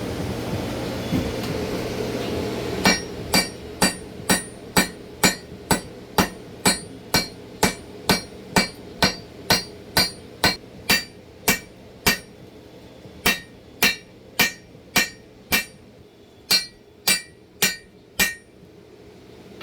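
A hand hammer striking hot steel on an anvil during blade forging: a steady run of about two ringing blows a second. The blows start about three seconds in, after a steady rushing noise, and break off in two short pauses in the second half.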